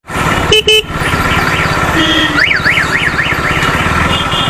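Motorcycle engine running on the road, with short horn blasts from traffic. About halfway through, a fast warbling electronic horn rises and falls about four times.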